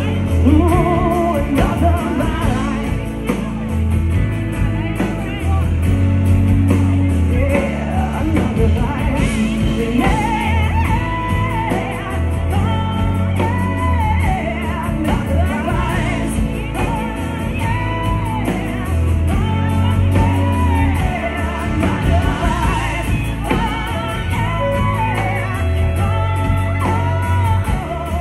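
A woman singing a song live, accompanying herself on acoustic guitar, with a drummer playing along, heard from the audience in the room.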